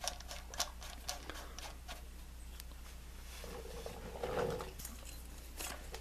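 Light, irregular metallic clicks and taps as the crankshaft bolt is fitted by hand back into the crank snout of a Honda D16 SOHC engine, with a brief louder hum-like sound about halfway through.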